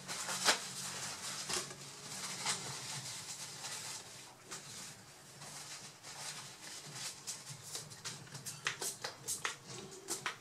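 Paper towel rustling and crinkling as it is folded in the hands and then rubbed over the laptop's heatsink to clean off the old thermal paste, with several sharp clicks near the end.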